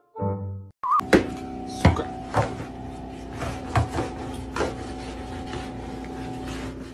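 A thin rod poked under a refrigerator, knocking and scraping against the floor and the appliance's underside. It gives about five sharp, irregular knocks over a steady hum. A brief moment of brass music ends just before the knocking starts.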